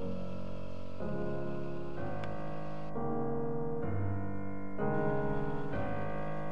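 Background piano music: slow, sustained chords changing about once a second.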